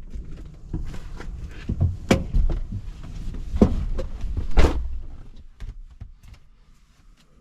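A quick run of knocks and thuds over a low rumble, dying away after about five seconds.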